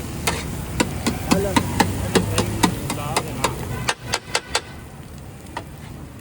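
Metal spatula clanking against a griddle where daal and egg tikkis are frying, about three sharp strikes a second that stop after about four and a half seconds, with one more strike later. A low traffic rumble runs underneath.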